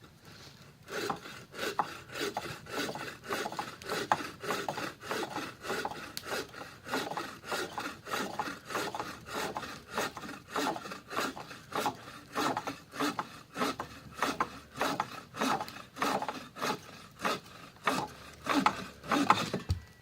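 Hand saw cutting through wood in steady back-and-forth strokes, about two a second. It starts about a second in and stops just before the end.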